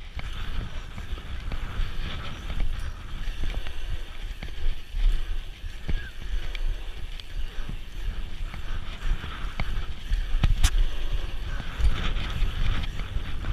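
Wind buffeting the on-board camera microphone and tyres rolling on asphalt as a bike rides over pump-track rollers and berms, with scattered clicks and a sharp knock about ten and a half seconds in.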